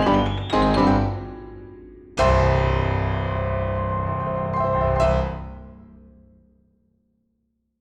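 Piano-like keyboard music: quick repeated chords, then a loud final chord about two seconds in, struck again near five seconds, ringing down and fading to silence by about seven seconds.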